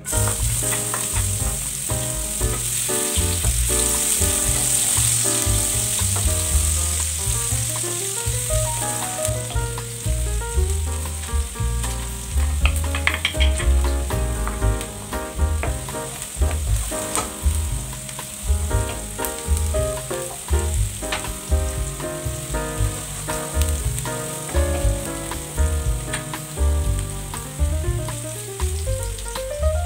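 Hot oil sizzling in a frying pan as minced aromatics are sautéed and stirred with a wooden spatula, a steady frying hiss. Background music plays underneath.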